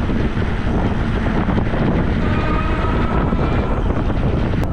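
Moped-style electric bike riding over a sandy path: tyre rumble and wind buffeting the bike-mounted microphone make a steady loud noise. A faint whine comes and goes near the middle.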